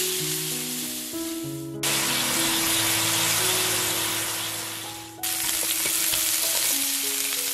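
Thick pork neck steak sizzling as it sears in oil in a hot frying pan; the sizzle dies down and then cuts back in suddenly twice, about two and five seconds in. Soft background music with held notes plays underneath.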